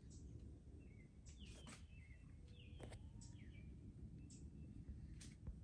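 Near silence with a low background hum, broken by several faint bird chirps: short notes that step down in pitch, scattered through, with a couple of faint clicks.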